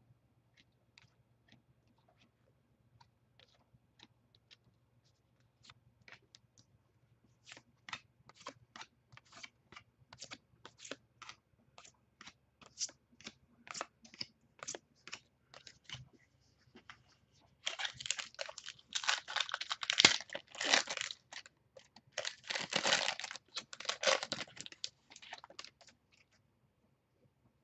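Baseball trading cards being flipped one after another, a string of light card clicks that grows quicker and louder. Then, about two-thirds of the way in, a card pack wrapper is torn open and crinkled for several seconds.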